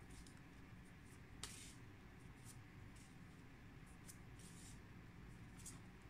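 Near silence with faint, quick swishes and flicks of paper flashcards being flipped one after another, the clearest about a second and a half in, over low room hum.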